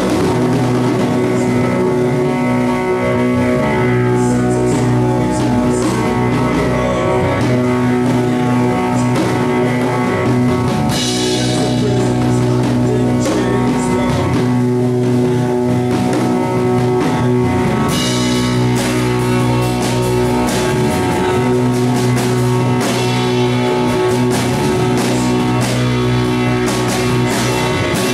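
A live band playing electric guitar, bass guitar and drum kit, with held low notes under the drums and cymbals.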